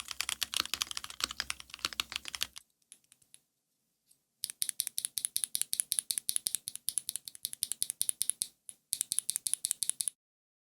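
Fast typing on a mechanical keyboard fitted with SW x Haimu MP tactile switches, a full brass Tofu60 Redux case with an aluminium plate, and Hammerworks CRP keycaps: a rapid stream of sharp key clacks. The typing breaks off for about two seconds a few seconds in, leaving only a few faint taps, then resumes, pauses briefly, and stops shortly before the end.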